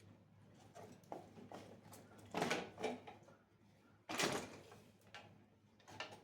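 Scattered knocks, clunks and scrapes of workshop parts being handled and set down. The loudest is a short clunk about four seconds in.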